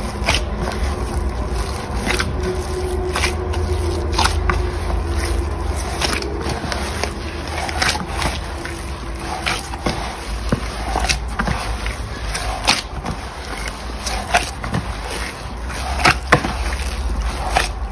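Soft bread dough being kneaded by hand in a metal mixing bowl, folded from the sides to the middle: irregular wet squelches and slaps of the dough against the bowl over a steady low rumble. The dough is nearly fully kneaded.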